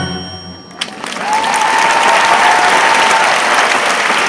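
The orchestra's final chord ends the number and rings away, and about a second in a large audience breaks into loud applause, with a long whistle from the crowd over it.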